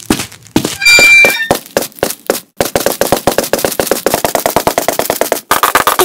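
Cartoon sound effects: a few separate knocks, a short ringing tone about a second in, then a rapid run of sharp clicks, about ten a second, lasting some three seconds. It ends in a louder, denser rattle near the end.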